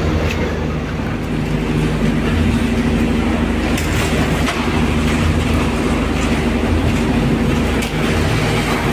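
A large diesel engine running steadily, a constant low drone with several steady hum tones and a fast low pulse.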